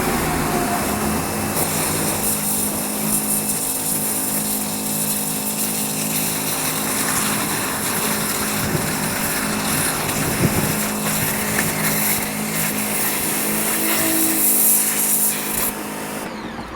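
Sun Joe SPX3000 electric pressure washer running: a steady motor-pump hum under the hiss of a high-pressure water jet spraying a Gala apple. The spray starts about a second and a half in and cuts off near the end.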